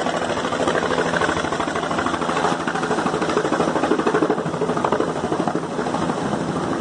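Helicopter coming in to land close by: the fast, steady chop of its main rotor over the running engine.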